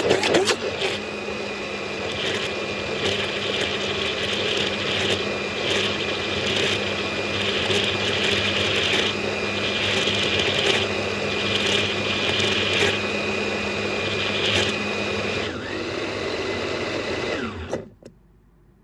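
Electric blender running steadily, grinding a wet curry spice paste of onions, garlic, chillies and candlenuts. It is switched off near the end and the motor winds down to a stop.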